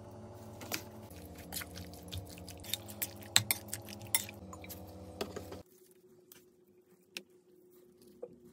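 Metal spoon clinking and scraping against a glass bowl while mixing chunks of raw chicken into a wet yogurt and tomato paste marinade, with many sharp clicks and wet squishing. The mixing stops a little past halfway, leaving only a few soft clicks.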